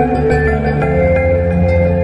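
Calm ambient background music: soft held synth-like notes with a shift in the low chord about a second in.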